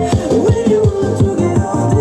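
Electronic music played through a speaker driven by a bass and treble tone-control amplifier, with a beat and quick, repeated falling bass notes.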